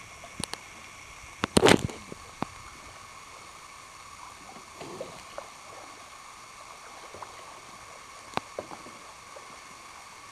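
Kayak paddling on calm water: paddle dips and splashes with a few sharp knocks, the loudest about two seconds in.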